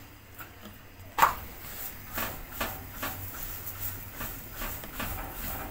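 Kitchen handling noises while a rolled chapati is moved from the rolling board to the stove: one sharp knock about a second in, then a run of soft taps about two a second over a low steady hum.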